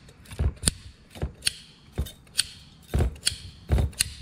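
Lock wire pliers twisting stainless steel safety wire: a string of sharp metallic clicks, two or three a second, some with a dull knock under them.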